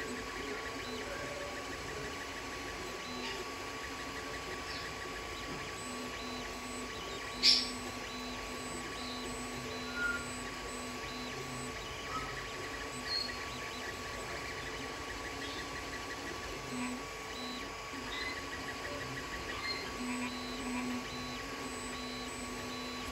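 Creality Ender 3 3D printer printing: stepper motors whirring in shifting tones as the print head and bed move, over a steady fan hum. A sharp tick about seven and a half seconds in is the loudest sound, with a few fainter ticks later.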